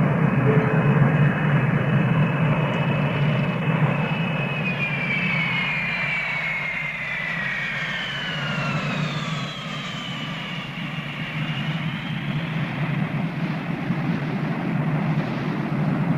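Boeing 727 jet airliner rolling on a wet runway: a loud, steady rush of engine noise over a low rumble, with a turbine whine that glides down in pitch from about four seconds in.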